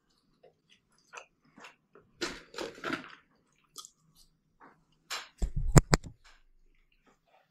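Close-up mouth sounds of a person eating a slice of chicken fajita pizza: scattered chewing and wet clicks, with a denser run of smacking as he sucks the sauce off his fingers about two to three seconds in. About five and a half seconds in comes the loudest moment, a quick cluster of knocks and deep thumps as a hand bumps the recording device.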